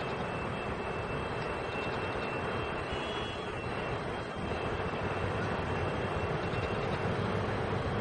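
Steady rumble of a train at the station, with a faint high steady whine over it, growing slightly louder about halfway through.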